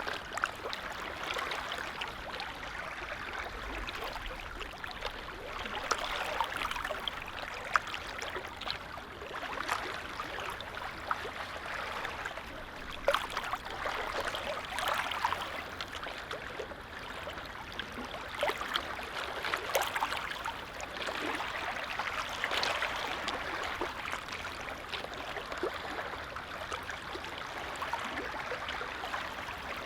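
Small lake waves lapping: a continuous gentle wash of water with many small splashes scattered through it.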